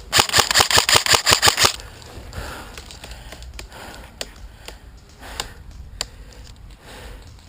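Airsoft electric rifle (KWA KM4 SR10) firing a fast semi-auto string of about a dozen shots, roughly eight a second, in the first second and a half. A few single, fainter shots follow later.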